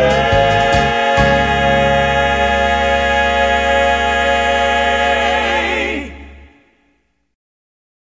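Gospel song ending on one long held chord of voices over a steady bass, fading out about six seconds in, then dead silence.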